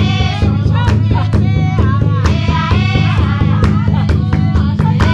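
Women singing together over a drum beaten in a steady rhythm of about two to three strikes a second: live traditional dance music.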